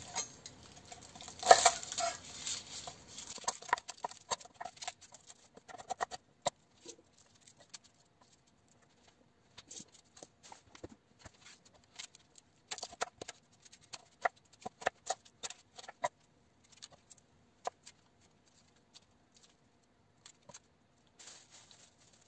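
Food prep on a wooden cutting board: papery garlic skins crackling as cloves are peeled, loudest about a second and a half in, then scattered sharp knocks of a kitchen knife cutting through an onion on the board, with quiet gaps between.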